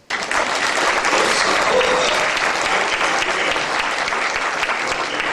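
Audience applauding, dense steady clapping that starts abruptly and holds throughout.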